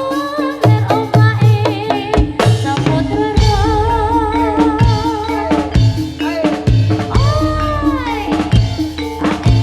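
Live gedrug music: a steady drum rhythm under a wavering melody line that slides up and down in pitch.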